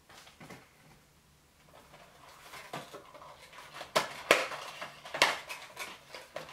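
Cardboard and plastic cosmetics packaging being handled and opened by hand: rustling and crinkling from about two seconds in, with a few sharp clicks and taps.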